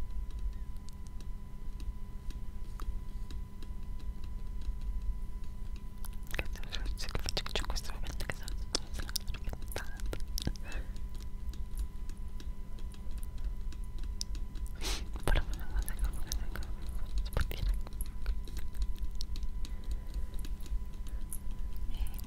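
Inaudible ASMR whispering with wet mouth clicks, scattered crackling clicks densest about six to ten seconds in and again around fifteen seconds. Underneath runs a steady electrical hum and whine from a failing microphone.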